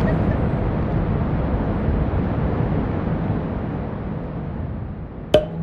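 Outdoor city ambience: a steady low rumble that fades gradually, then a single sharp click near the end.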